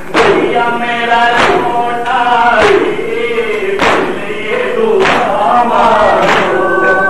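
Men's voices chanting a noha, held sung lines over a steady beat of hands striking chests (matam) about once every 1.2 seconds.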